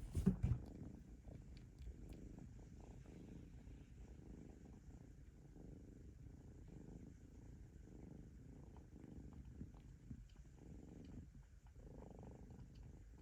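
Kitten purring steadily, a low continuous rumble, with a couple of knocks near the start.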